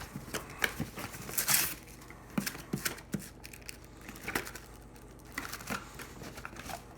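Plastic wrapping on a trading-card package crinkling and tearing in short, irregular bursts, mixed with small clicks and taps from handling.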